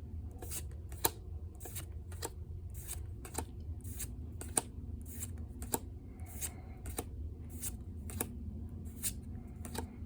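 Pokémon trading cards being flicked through one at a time, a crisp card snap about twice a second, over a steady low room hum.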